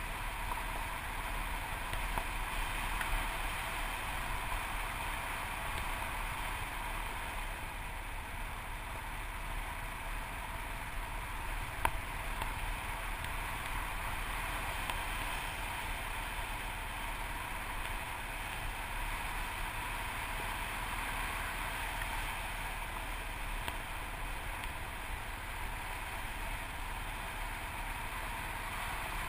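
Yamaha TT600RE single-cylinder dual-sport motorcycle riding steadily along a gravel road, its engine, tyres and the wind blended into a steady noise, with one sharp tick about twelve seconds in.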